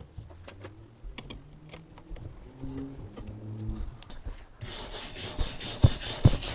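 Faint creaks and clicks as a steel C-clamp is screwed tight on an axe handle. About four and a half seconds in, a coarse, rhythmic scraping starts as a hand-held abrasive block is rubbed back and forth over the rusty steel axe head to scour off the rust.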